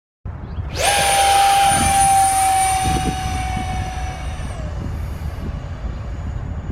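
Whine of the 64 mm electric ducted fan in a Marlin 64 RC jet. The whine rises quickly and holds steady, then drops in pitch about four and a half seconds in as the throttle is eased back, over a low rumble.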